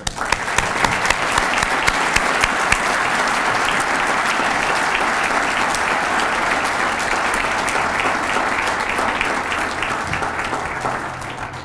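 Audience applauding: a dense patter of clapping that starts at once, holds steady, and fades out near the end.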